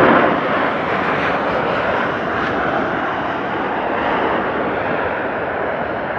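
Boeing 737-800 arriving, its CFM56 jet engines making a broad rushing noise that is loudest at the start and slowly fades.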